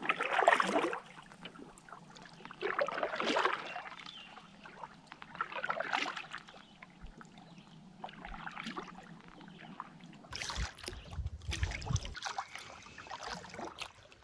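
Canoe paddle strokes in lake water: a splashing swish about every two and a half to three seconds as the paddle dips and pulls. About ten seconds in the sound changes to a low rumble with clatter.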